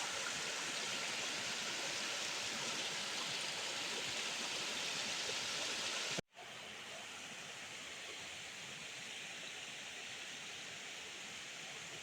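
Steady rushing water of a mountain stream. About halfway through it cuts out for an instant, then carries on a little quieter.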